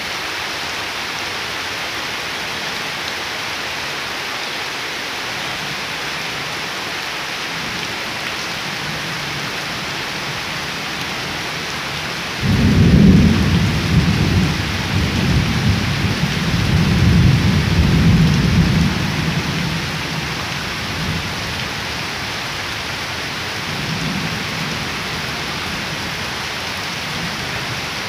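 Heavy rain falling steadily on bare ground and leaves. About halfway through, a low rumble of thunder sets in suddenly, rolls on for several seconds and fades, with a fainter rumble near the end.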